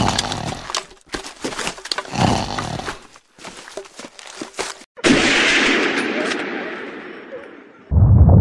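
Explosion sound effect: a sudden loud blast about five seconds in that fades away over some three seconds, followed near the end by a loud low rumble. Before the blast come irregular short knocks and noises.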